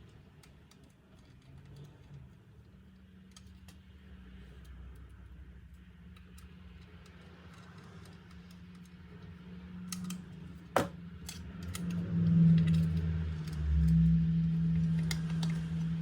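Scattered light clicks and rattles of small hard objects being handled, with one sharp click about eleven seconds in, over a low steady hum that grows louder near the end.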